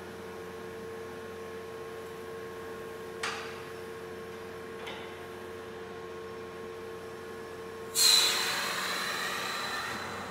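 Vacuum lifter's pump running with a steady hum, with two light clicks from the lifting arm. About eight seconds in, a loud whistling hiss of air at the vacuum pad starts sharply and fades over about two seconds as the pad works on a wooden panel.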